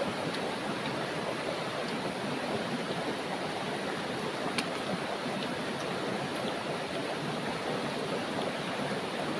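Steady rushing of a river flowing over rocks, with one faint click about halfway through.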